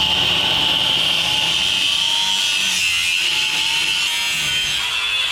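Reciprocating saw (sawzall) cutting through a stuck steel cab-mount bolt, a loud, steady high-pitched buzz.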